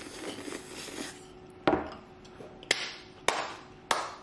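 Noodles slurped in at the start, then four sharp hand claps at uneven intervals from a little under two seconds in.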